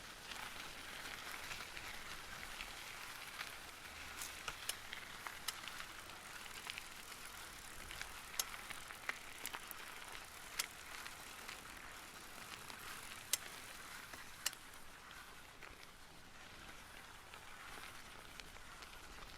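Bicycle tyres rolling over gravel: a steady gritty hiss with scattered sharp clicks of stones, a few of them louder.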